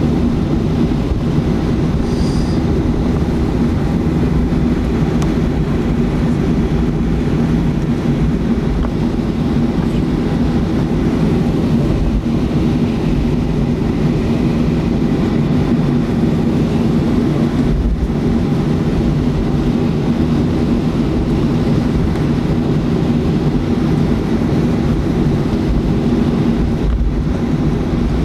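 Boeing 737-300's CFM56 jet engines running at taxi power, heard inside the passenger cabin as a steady rumble with a low drone.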